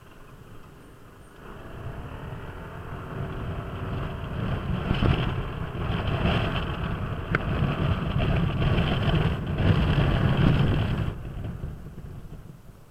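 Kymco Downtown 300i scooter's single-cylinder four-stroke engine pulling away and running along the road, mixed with wind noise, swelling from about a second and a half in. It drops off sharply about eleven seconds in, as the throttle closes.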